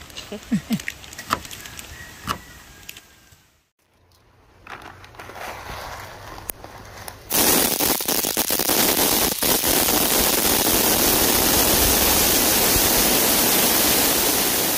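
Light clicks and knocks, then a loud, steady hiss with scattered crackles that starts suddenly about seven seconds in.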